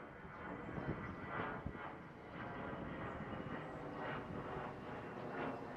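DART electric commuter train running by: a steady rumble of wheels on rail with a faint high whine and soft repeated swells.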